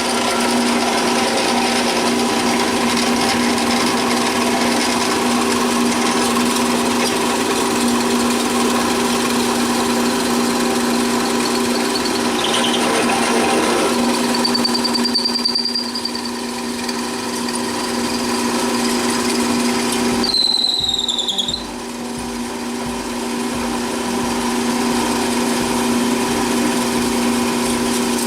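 Power drill running continuously, with a short high squeal falling in pitch about twenty seconds in.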